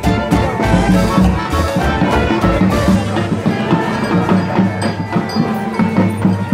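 Music with a steady percussive beat and a pitched melody.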